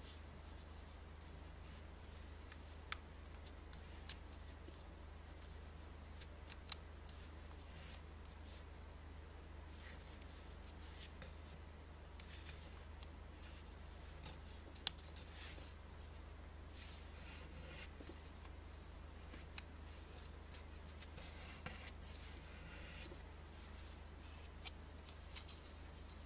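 Faint rustling and crinkling of a paper banknote being folded and creased by hand, with scattered sharp clicks as the folds are pressed down, over a steady low hum.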